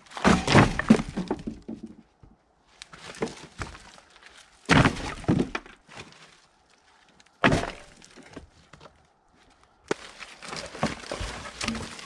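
Wood clattering and knocking: cut firewood pieces tossed into a steel-caged IBC tote and rough sawmill slabs dragged off a wooden rack and knocking together. It comes in about five separate bursts, the loudest right at the start and about five seconds in.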